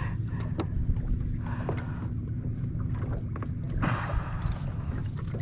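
Steady low hum of a fishing boat's motor, with scattered small clicks and a brief rush of noise about four seconds in.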